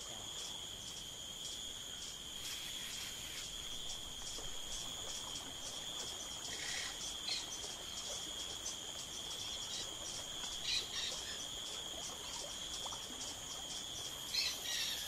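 Tropical insect chorus: a steady, high, rapidly pulsing trill, with a few brief chirps over it.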